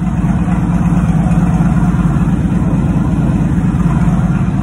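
1998 Honda Valkyrie's flat-six engine running steadily with an even low rumble.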